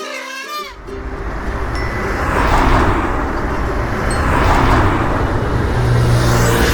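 Road traffic: vehicles passing with a low engine rumble and tyre noise, growing louder over the first two seconds and swelling as each one goes by. A short jingle of falling tones fades out in the first second.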